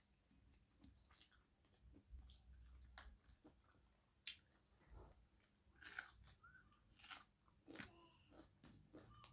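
Faint chewing and crunching as crayfish and snails are eaten by hand, with scattered short clicks of shells being picked at, roughly one a second.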